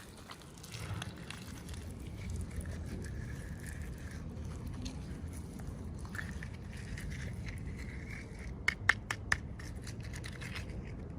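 Packaging being handled and scraped while unboxing miniature toys, with three sharp clicks a little under two seconds before the end.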